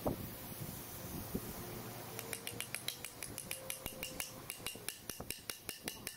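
Steel hammer and drift tapping a bearing race into a Komatsu GD755 grader's front hub housing: light, evenly spaced metallic taps, about five a second, starting about two seconds in.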